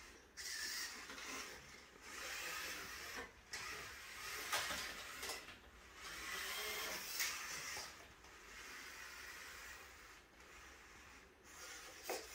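LEGO Mindstorms EV3 robot's motors and gears whirring in short runs of a second or two, starting and stopping as the robot drives across the mat and turns, with a few sharp plastic clicks in between.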